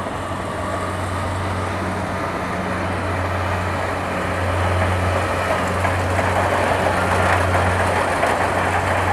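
Rice combine harvester running as it cuts ripe rice: a steady low engine hum under a broad rush of machinery noise, growing louder about halfway through as the machine comes closer.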